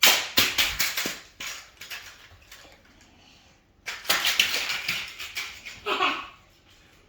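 3D-printed plastic model being smashed, its support material cracking and snapping off: a run of sharp clacks and cracks in the first second and a half, then a denser crackling clatter about four seconds in.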